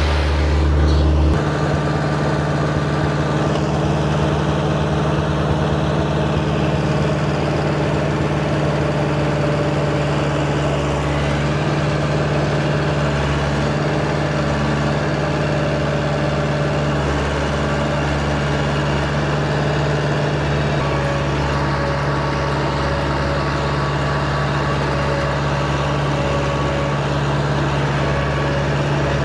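Tractor engine running steadily under load while pulling a Vermeer 2300 hay rake, an even low drone with no change in speed.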